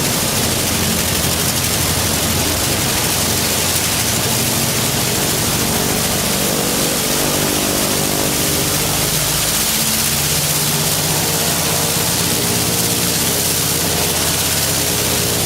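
Zero fighter's Nakajima Sakae 14-cylinder radial engine running on the ground, with the rush of the propeller over it; its note shifts in engine speed about two-thirds of the way in.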